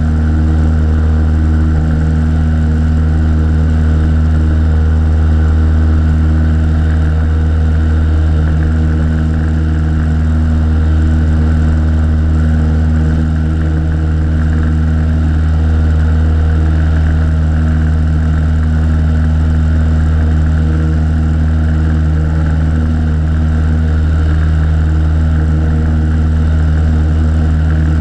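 Piper Colt's four-cylinder Lycoming O-235 engine and propeller droning steadily at climb power, heard from outside the cabin under the wing.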